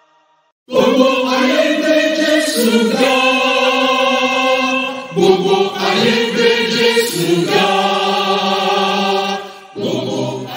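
Mixed choir of men's and women's voices singing long held chords, starting after a moment of silence, with short breaks between phrases about five seconds in and near the end.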